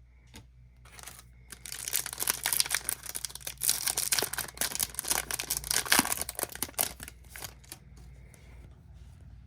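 Foil wrapper of a Topps Chrome trading-card pack being torn open and crinkled: a dense run of crackling from about a second and a half in until about seven and a half seconds.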